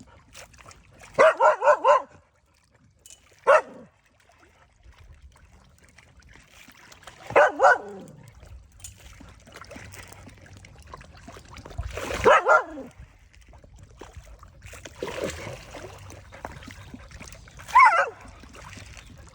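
Village dog barking in short bouts: a quick run of four barks about a second in, then single barks or pairs every few seconds. The barking is the dog calling fish up to their food.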